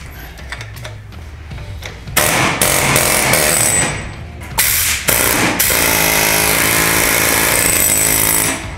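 Pneumatic impact tool hammering at the truck's front suspension, loosening the old parts for removal: a burst of about two seconds, a short blip, then a longer burst of over three seconds that cuts off near the end.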